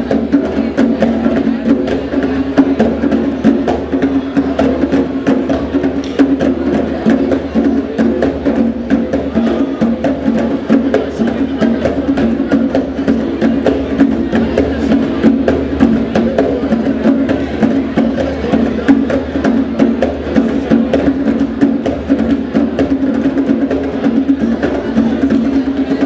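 A group of djembe hand drums played together in a fast, unbroken rhythm, dense with hand strokes.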